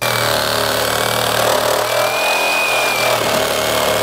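Electric power saw switched on suddenly and run steadily, cutting into timber with a whine that wavers slightly in pitch.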